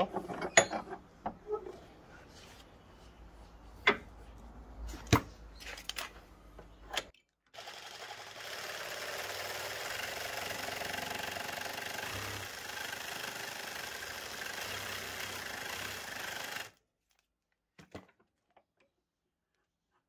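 Cordless reciprocating saw cutting through the steel end of a microwave magnetron's resonating cavity held in a vise, running steadily for about nine seconds and stopping abruptly. Before the cut, a few sharp knocks and clicks as the part and saw are handled.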